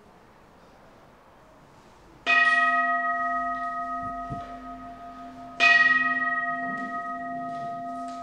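Buddhist bowl bell (kin) struck twice, about three seconds apart. Each strike rings on with steady, slowly fading tones. It marks the start of the chanted sutra.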